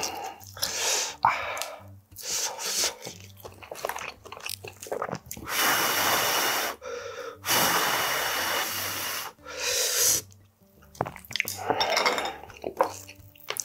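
A man blowing on a hot whelk to cool it, close to the microphone: two long breaths around the middle, among shorter breathy mouth sounds.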